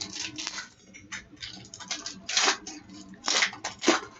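Hockey trading cards and a pack wrapper being handled: dry rustling and crinkling, with a few sharper crackles in the second half.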